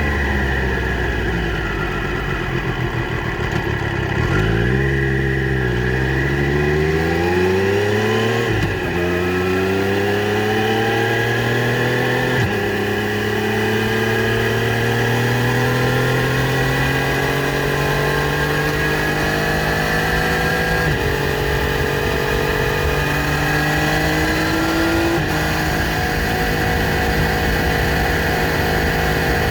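Triumph Street Triple RS 765 cc three-cylinder engine on its stock exhaust, accelerating hard through the gears. The pitch climbs, then drops sharply at quickshifter upshifts about a third of the way in and again near halfway. It then rises slowly and steadily in a higher gear, with small steps later on, and settles toward the end.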